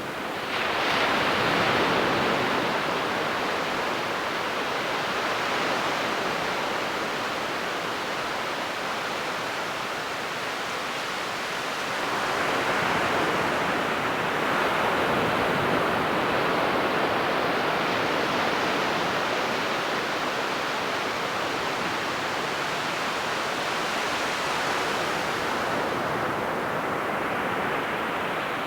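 Ocean surf washing onto a beach: a continuous rushing hiss that swells as a wave breaks about a second in and again around twelve seconds, thinning near the end as the water draws back.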